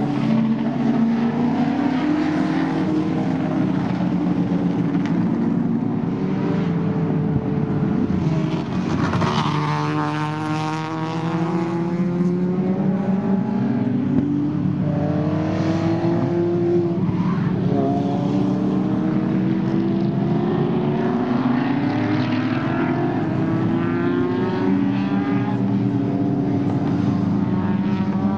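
Historic racing touring cars, big sedans and small cars, passing one after another on a warm-up lap, with several engine notes overlapping and rising and falling in pitch as the cars accelerate and change gear.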